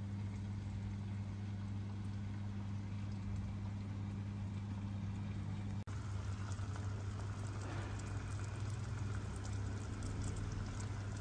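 Tofu frying in a pan, a soft sizzle with fine crackles that becomes stronger from about six seconds in, over a steady low electrical hum.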